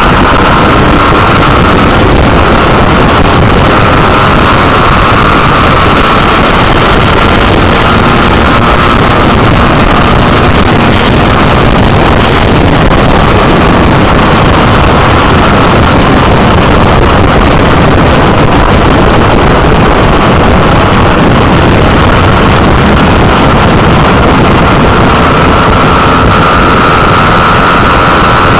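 Motorcycle riding at road speed: the engine running under loud, steady wind noise on the bike-mounted microphone. A faint pitched tone fades around the middle and comes back near the end.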